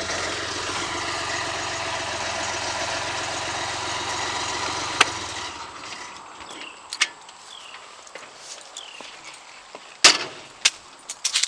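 JLG 601S boom lift's diesel engine idling steadily, then shut off about five seconds in and running down to a stop. After that come a few sharp metal clicks and clanks from the lift's steel basket.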